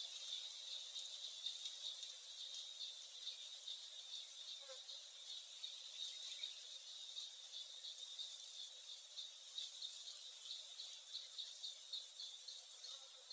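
Insects chirping in a steady, regular pulse, with a thin continuous high hum behind it.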